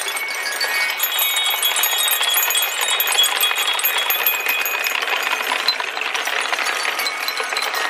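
Dozens of glass marbles rolling and clattering through a wooden marble run. They clink against each other and against aluminium deflector bars in a dense, continuous rattle dotted with short ringing chinks.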